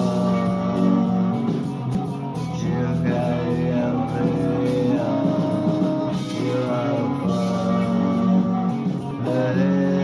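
Rock song with a singing voice over guitar.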